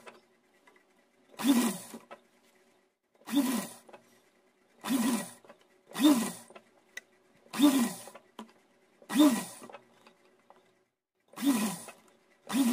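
Sewing machine stitching fabric in about seven short runs with pauses between them; on each run the motor whirs up in pitch and then winds down.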